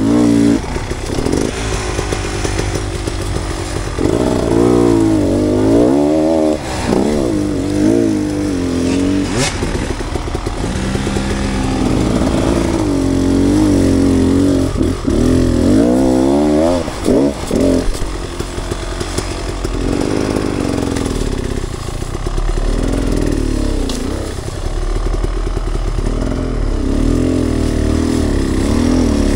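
Enduro dirt bike engine being ridden hard off-road, revving up and down over and over as the throttle is worked, its pitch rising and falling every second or two.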